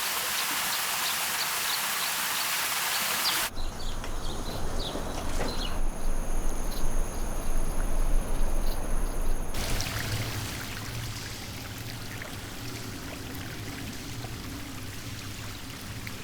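Running and trickling water in a limestone cave: a steady rush of flowing water with drips and splashes. The sound changes suddenly twice, about 3.5 and 9.5 seconds in, and is loudest in the middle stretch.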